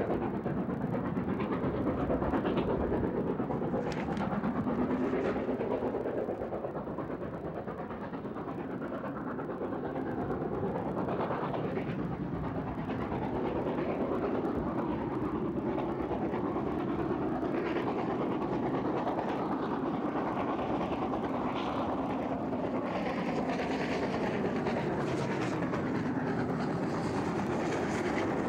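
Southern Railway N15 'King Arthur' class 4-6-0 steam locomotive No. 777 'Sir Lamiel' passing under steam with a train of coaches. Its exhaust and the clatter of wheels on the rails make a steady roar, with sharp clicks scattered through it.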